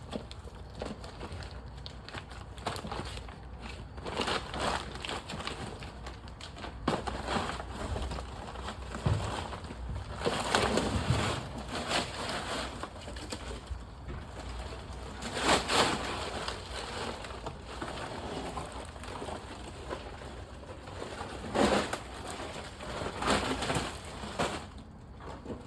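Irregular rustling, crinkling and knocking as packaging and a plastic bumper cover are handled, with louder scrapes now and then.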